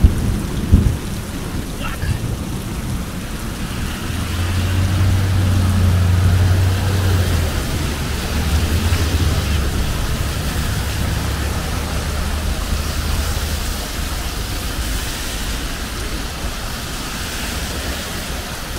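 Steady rain and wind noise on a wet city street, with a low rumble that swells about four seconds in and fades out around fourteen seconds.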